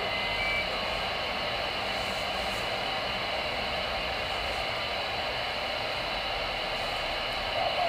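Steady hiss of static from a Voyage CB radio's speaker tuned to channel 22 (27.225 MHz AM), an open channel between transmissions.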